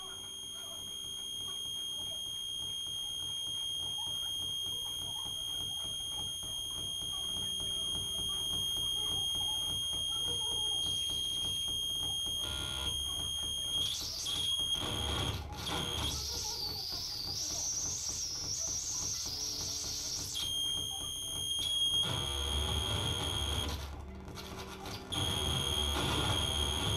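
Live electronic noise music from patched electronics: a steady high-pitched tone with overtones holds for about the first half. About halfway in it gives way to stretches of harsh noise over a low rumble, and the tone returns briefly in between.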